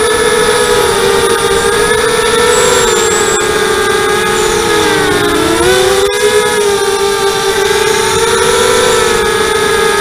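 FPV250 racing quadcopter's brushless motors and propellers whining in flight, several close tones that rise and fall together with the throttle. The pitch dips briefly about five seconds in, then climbs back.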